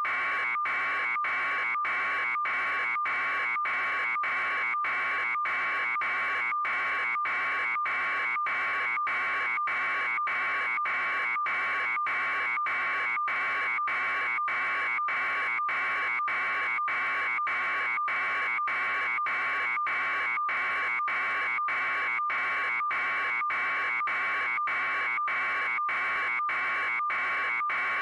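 A steady electronic buzz that breaks off for an instant a little under twice a second, unchanging throughout.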